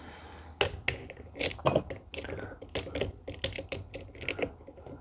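Irregular clicks and taps of hand tools and small parts being handled during work on a diesel injection pump, a few per second.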